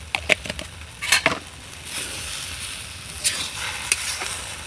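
A long metal spatula scraping and knocking against a black iron kadai as a rice and lentil mixture is stirred and fried, with a steady sizzle underneath. The sharpest scrapes and knocks come in the first second and a half, and the sizzle grows louder about halfway through.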